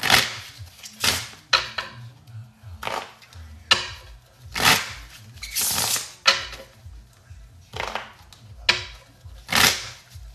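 A deck of playing cards being riffle-shuffled over and over, each riffle a short, sharp flutter of cards, about one a second.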